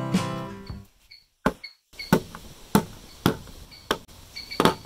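Acoustic guitar music fades out in the first second. After a short near-silent gap come about six short, sharp clicks, roughly every half second: small metal parts (steel coil springs and a short pipe piece) being set down one by one on a hard table.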